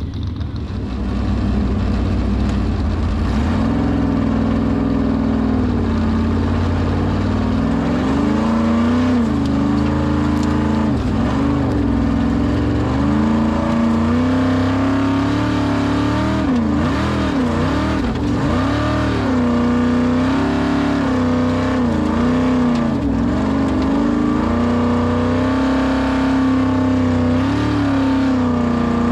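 Formula Offroad competition buggy's V8 engine revving hard, its pitch rising and falling again and again as the throttle is worked through the run.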